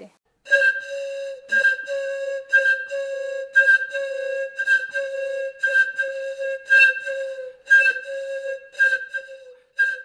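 Flute music: a single note held at one pitch and blown again about once a second, each blast starting with a sharp, breathy attack.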